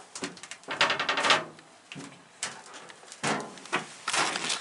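Irregular clicks, knocks and rustling from a handheld camera being moved about and handled, with a short rattly clatter in the first second and a half.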